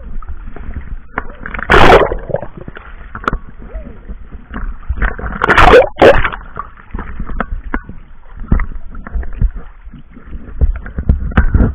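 Sea water splashing and sloshing, with two loud splashes about two seconds in and about six seconds in, among many small knocks and a low rumble of water.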